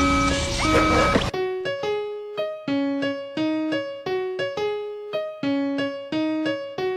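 Instrumental music without vocals. The full backing track cuts off about a second in, leaving a solo piano-like keyboard playing a melody of single struck notes.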